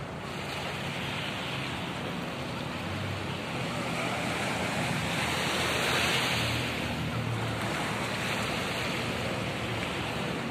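Small waves breaking and washing up a sandy beach, a steady surf that swells to its loudest about six seconds in.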